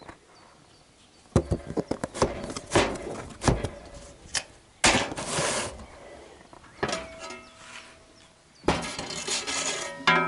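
Knocks and clatter of wooden boards being handled on a homemade wooden box trap: a quick run of sharp knocks in the first half, then a louder scrape, and more rustling and knocking near the end as a board is lifted.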